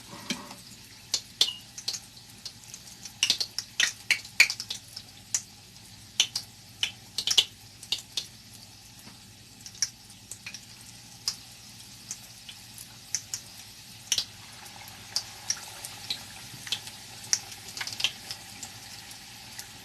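Hot rapeseed oil crackling and spitting around battered chicken frying in a pan: scattered sharp pops over a faint steady sizzle, thicker in the first half.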